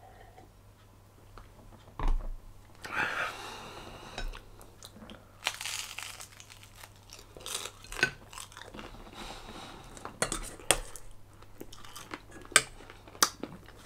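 Eating sounds close to the microphone: crunching and chewing with scattered sharp clicks and clinks, a dull thump about two seconds in, and a couple of short hissing rushes.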